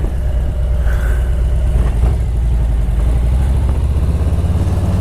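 Harley-Davidson Road Glide's V-twin engine running with a low, pulsing exhaust note, picked up by a helmet-mounted microphone.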